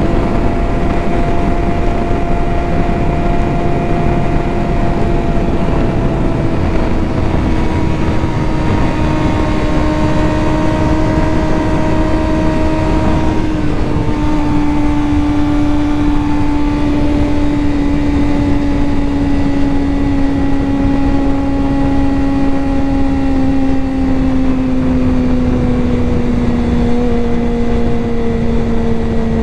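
A 2023 Suzuki GSX-R600's inline-four engine running steadily under way, its pitch falling slowly, with a small step down about halfway through. Wind rush sits underneath.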